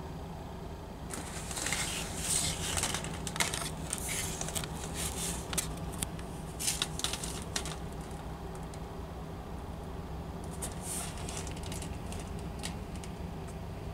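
Front-loader garbage truck's engine running low and steady at a distance, overlaid by irregular crackling and rattling in two stretches, about a second in until about eight seconds, and again near the end.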